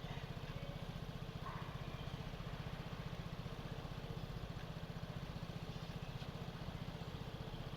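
Vespa 125 scooter's single-cylinder engine idling steadily with an even, fast pulse.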